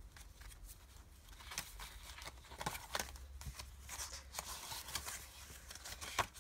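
Pages of a handmade paper junk journal being turned and handled: faint rustling of paper and cardstock with scattered light taps and clicks.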